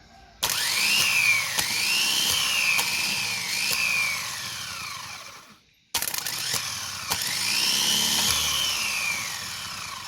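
A high-speed electric motor whines in two runs. In the first, the pitch dips sharply and recovers several times, with clicks. Each run ends with the whine falling and fading as the motor winds down.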